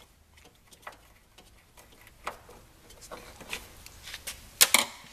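Scattered sharp clicks and taps of a wrench working the top belly pan bolt of a snowmobile loose, with the loudest pair of clicks near the end.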